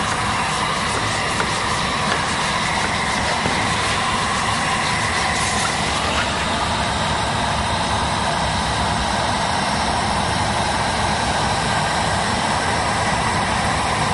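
Electric hot-air heat gun running steadily, blowing hot air to soften and set vinyl wrap onto a metal boat hull.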